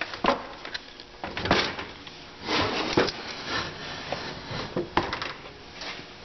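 GM 440-T4 transmission case being lowered and set back down on a workbench: a series of separate knocks and clunks of metal on the bench. The loudest come about one and a half, three and five seconds in.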